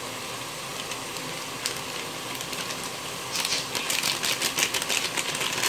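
Chicken frying in masala in a steel pot with a low steady sizzle. About three seconds in, a fast run of crinkling clicks starts as the Shan spice-mix packet is shaken out over the pot.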